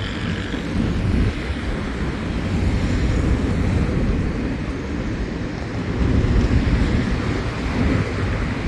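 Alstom Série 8900 electric multiple-unit train running along the track, a steady low noise, with wind on the microphone.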